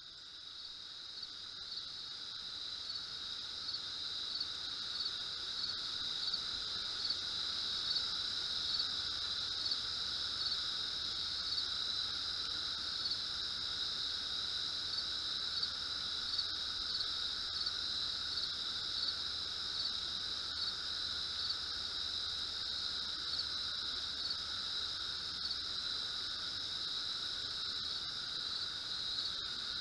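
Steady high-pitched drone made of two held tones, with a faint regular ticking on the upper one. It fades up over the first few seconds, then holds level.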